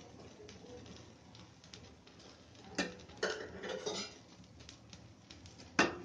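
Metal spatula scraping and clacking against a non-stick frying pan as a cooked egg omelette pizza is loosened for turning: a sharp clack about three seconds in, a short run of scraping and clatter after it, and the loudest clack near the end.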